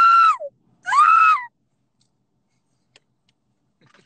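A man shrieking with laughter: two high-pitched squeals, each under a second, one right after the other.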